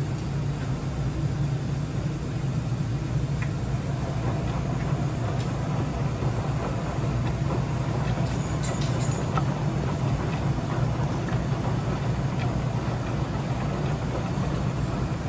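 Continental Girbau commercial front-load washer running: a steady low hum with the rush of water spraying into the drum, and a few faint ticks.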